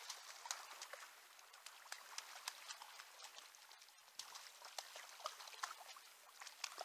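Irregular splashing and dripping of water as a hooked brown trout thrashes at the landing net, with a short lull about four seconds in.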